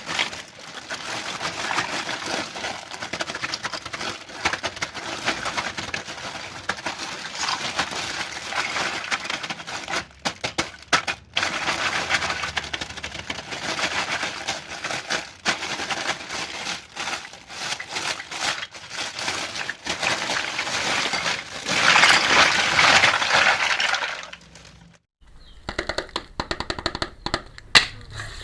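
Crinkling, crackling plastic packaging with many sharp small clicks and taps, as a miniature toy kitchen set is unwrapped and handled. It gets louder for a couple of seconds near the end, then drops off suddenly.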